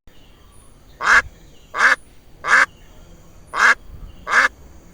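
A duck quacking: five short quacks, three in quick succession, then a brief pause and two more.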